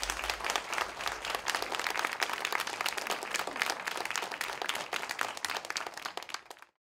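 Audience applauding: many hands clapping densely, thinning a little near the end and then cutting off abruptly.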